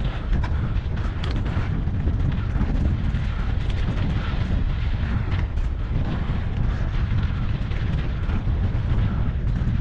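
Wind buffeting the microphone while riding a mountain bike on a rough trail: a dense, steady low rumble, with scattered light rattles and crunches from the bike and the trail surface.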